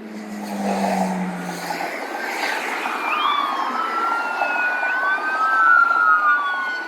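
Emergency-vehicle siren wailing, its pitch sliding slowly up and down, over a steady rush of highway traffic.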